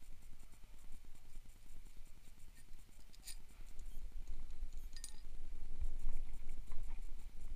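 Handling noise and scraping while a mini dirt bike's front wheel, axle and spacers are fitted, with two light metallic clinks, about three and five seconds in.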